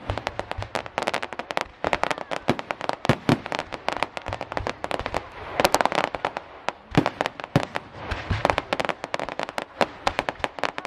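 Fireworks display going off: a rapid, unbroken run of sharp crackling bangs and pops, with denser flurries about two, six and nine seconds in.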